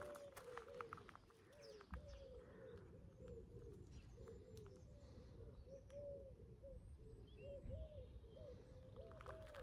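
Pigeons cooing faintly over and over, their low rolling coos overlapping in a steady run, with a few small-bird chirps.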